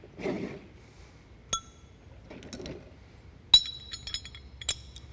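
Steel tools clinking: a large hex socket being handled and fitted onto a torque wrench, giving a few sharp metallic clinks that ring briefly, the loudest about three and a half seconds in, with soft handling rustle between them.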